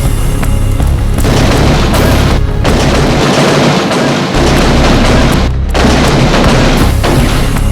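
Loud, dense booming and rumbling layered with music, like cinematic explosion sound effects. It breaks off briefly twice.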